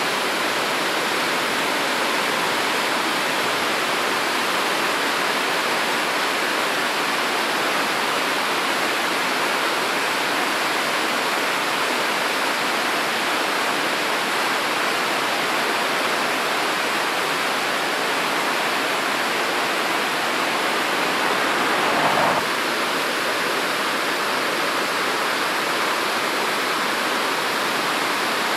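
Swollen, muddy mountain river rushing through rapids over boulders: a steady, loud rush of whitewater that swells briefly about two-thirds of the way in.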